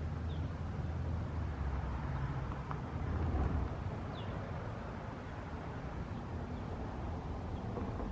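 Outdoor ambience: a steady low rumble with a few faint, short high chirps, one near the start and one about four seconds in.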